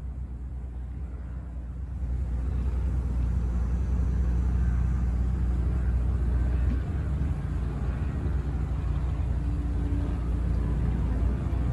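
Single inboard engine of a Grand Banks 36 trawler running at idle: a steady low rumble that gets louder about two seconds in.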